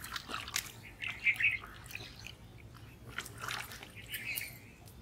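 Shallow pond water splashing and sloshing in short irregular bursts as hands grope inside a bamboo polo fish trap pressed into the mud.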